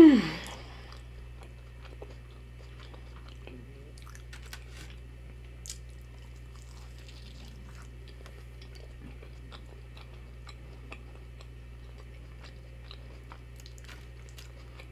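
Close-miked chewing of a battered fried onion ring: faint crunches and wet mouth clicks, scattered and uneven. It opens with a short vocal sound falling in pitch.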